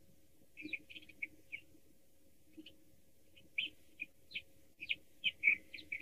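European starling giving short, high chirps and whistles, a few scattered notes at first, then coming quickly one after another in the last couple of seconds.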